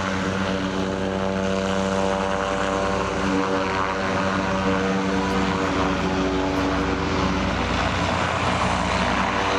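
Zeppelin NT airship's propeller engines running as it lifts off and climbs away, a steady droning hum with a rushing wash of air. Near the end the hum thins into a broader rush.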